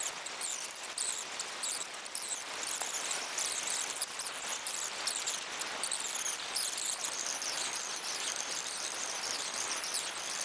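Large driftwood bonfire burning, with dense, continuous crackling and hissing of the flames, mostly high-pitched.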